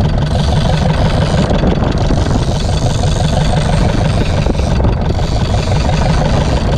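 Fishing boat's diesel engine running steadily, a loud, even rumble.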